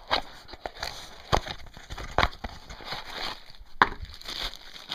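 Handling noise: a few sharp clicks and knocks, about four over five seconds, with light rustling in between, as a small engine part is picked up and handled.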